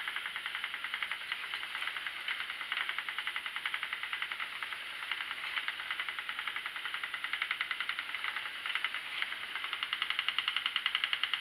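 Schacht Sidekick spinning wheel running steadily while plying wool, its turning flyer and treadle action making a fast, even ticking rattle that grows a little louder near the end.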